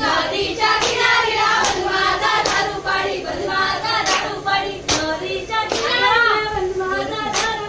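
A group of voices singing a folk song together for a jakhadi dance, with a sharp hand clap about every 0.8 s keeping the beat.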